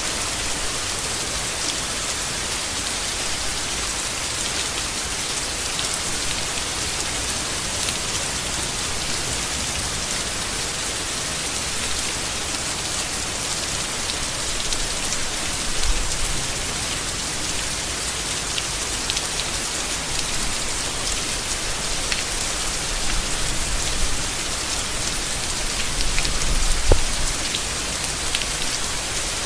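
Steady rain falling on leaves: a dense, even hiss dotted with the ticks of single drops. There are a few brief louder low bumps, the sharpest about 27 seconds in.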